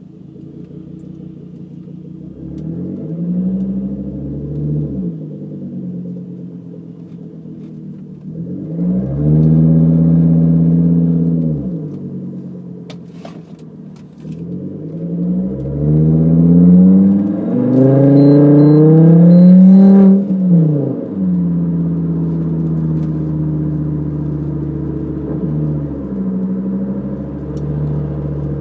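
Volvo S60R's turbocharged 2.5-litre inline-five through a custom exhaust with a catted downpipe, a Dynomax Bullet resonator and no muffler, heard from inside the cabin. The exhaust note rises in pitch three times as the car accelerates, the third pull the longest and loudest, each falling away afterwards, then settles into a steady cruising drone.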